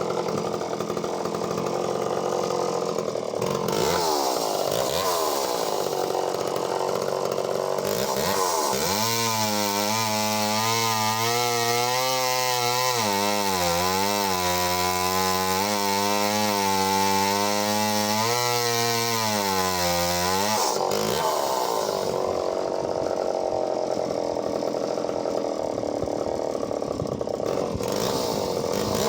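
Echo CS-451VL two-stroke chainsaw cutting through logs. About nine seconds in it drops to a steady idle for roughly ten seconds, then goes back to cutting.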